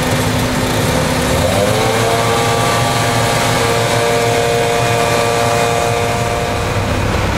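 Truck-mounted concrete boom pump's diesel engine running loud, revving up about one and a half seconds in and then holding steady at high revs.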